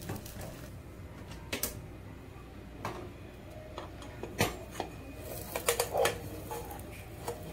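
Spatula scraping and tapping against a small nonstick saucepan as a pancake is loosened and turned: scattered sharp clicks and knocks, several close together about six seconds in.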